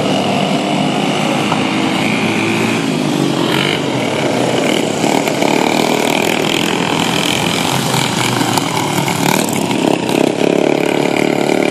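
Several racing lawn mower engines running at high revs together, their pitch rising and falling as they pass and change speed.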